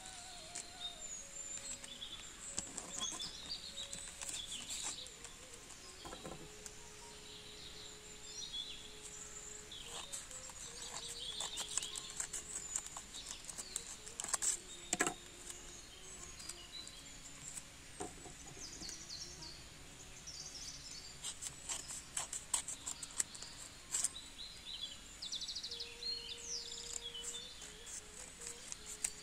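Scissors snipping through folded white paper and the paper rustling as it is handled, with sharp clicks loudest about halfway through. Birds chirp throughout in the background.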